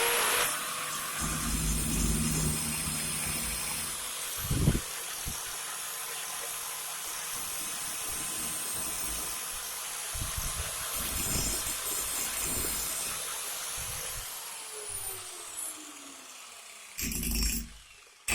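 Angle grinder motor spinning up with a rising whine, then running at full speed with a steady high whine and hiss, with a few low thumps. The whine falls away as the disc winds down, about fifteen seconds in, and a brief clatter follows near the end.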